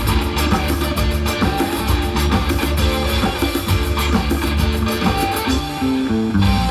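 A live band playing an instrumental passage of a Hindi film song, with a drum kit and a steady bass line.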